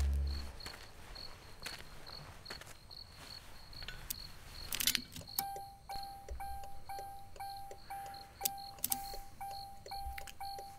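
Crickets chirping steadily at night, with a brief clatter near the middle. About halfway through, a repeated electronic beep starts at about two beeps a second. Music fades out right at the start.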